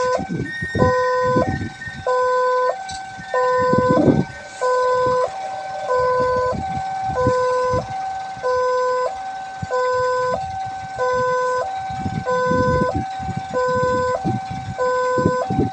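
Railway level-crossing warning siren sounding a two-tone hi-lo alarm, switching between a lower and a higher tone a little more than every half second, warning of an approaching train. Irregular low rumbling runs underneath.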